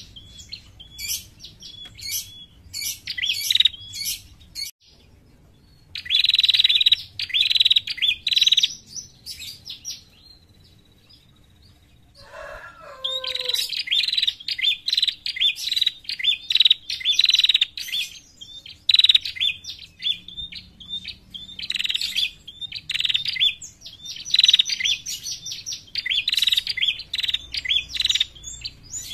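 A caged female prenjak, a rufous-headed tailorbird, calling in rapid, sharp repeated chips in bursts of a few seconds. The chips stop for about four seconds in the middle, where a short, lower falling call is heard, then resume almost without pause.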